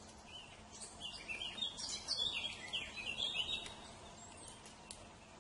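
Bird calls: a quick jumble of short, high chirping notes starting about a second in and lasting roughly three seconds, followed by a few faint clicks.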